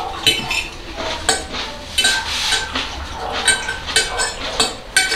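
Metal forks clinking and scraping against ceramic dinner plates while eating salad: a string of sharp, irregular clinks, some with a short ring.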